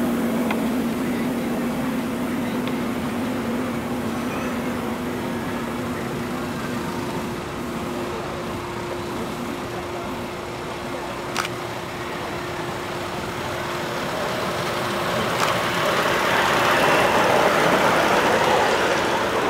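Ride-on miniature live-steam locomotive running along a small-gauge track: a steady mechanical noise with no clear beat, growing louder near the end.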